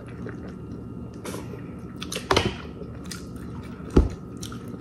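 People eating a seafood boil with their hands: chewing and biting into corn on the cob and shellfish, with wet smacking and small clicks. A sharp thump comes about four seconds in.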